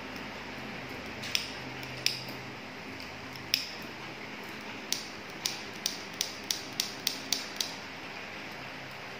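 Small tongs clicking as they are squeezed shut, three scattered clicks and then a quicker run of about eight, over a steady background hiss.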